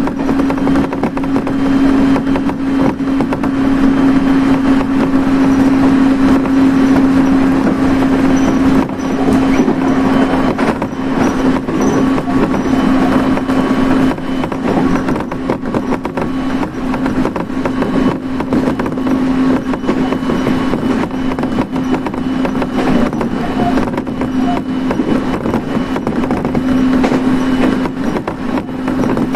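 Inside a moving electric train: steady running noise of wheels on rail, with a low hum held at one pitch.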